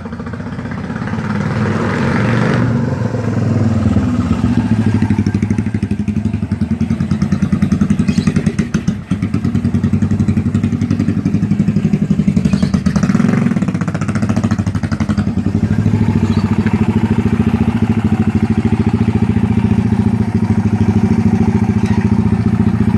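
Yamaha SR400's air-cooled single-cylinder engine idling with an even, rapid pulse of exhaust beats. It grows louder over the first few seconds.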